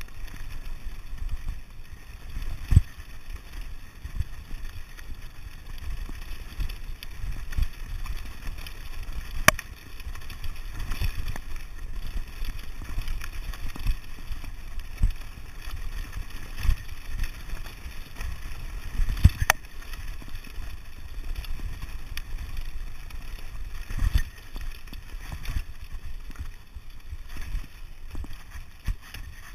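Mountain bike riding fast down a rough stony track: constant rumble and rattle of the tyres over loose gravel, with wind buffeting the microphone. There are a few sharp knocks as the bike hits bumps, about three seconds in, near ten seconds, and twice more later.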